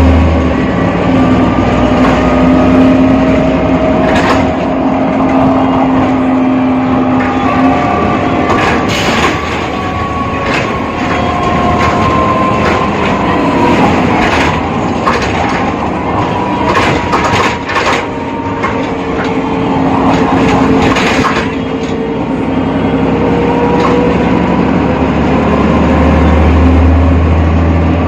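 A BredaMenariniBus Avancity Plus city bus with a ZF gearbox, heard while it is running, with several whining tones that slowly rise and fall in pitch. A deep rumble is strong at the start and again near the end. Through the middle there is a spell of rattles and sharp knocks.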